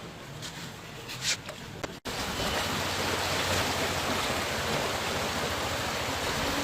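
Steady rush of flowing floodwater, a broad even noise. It comes in suddenly and louder about two seconds in, after a quieter stretch with a few light clicks.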